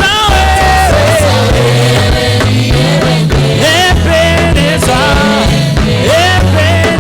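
Church praise band music: voices singing a gospel song over a moving bass line.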